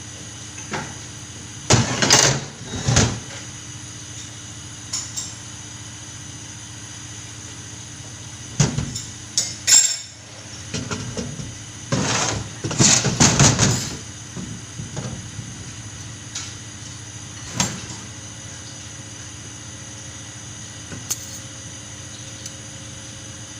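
Clusters of metallic clanks and knocks, as from metal parts being handled and set down, over a steady background hum.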